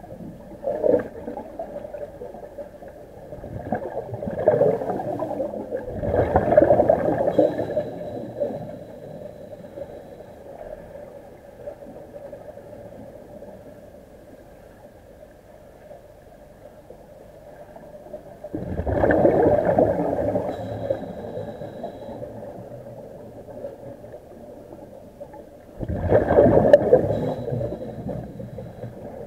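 Underwater recording of a diver's breathing gear releasing air bubbles in gurgling bursts of a few seconds each, several times, with quieter stretches between them. A faint steady whine runs underneath.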